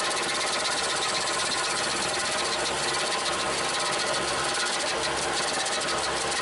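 Bobcat SG60 stump grinder on a Bobcat T300 track loader running steadily, a continuous mechanical noise with a fine, rapid clatter.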